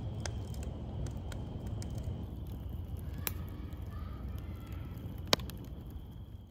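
Wood campfire burning in a metal fire ring, crackling with scattered sharp pops over a steady low rumble; one loud pop comes about five seconds in. The sound fades out at the end.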